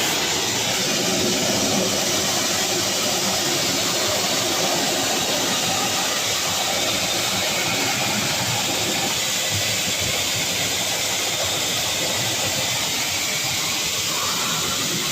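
Dog grooming blower running steadily at full power with a loud, even whoosh of air. It is blowing through a tumble dryer venting hose to clear out dog fur and fluff.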